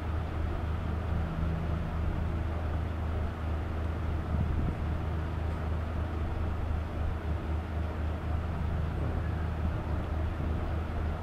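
Steady low hum with a constant noisy background, unchanging throughout.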